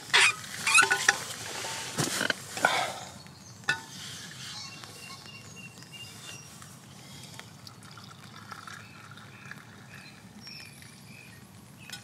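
An insulated drinks flask being handled and its lid twisted open, with a few scrapes, squeaks and knocks in the first three seconds. After that, faint birds chirping.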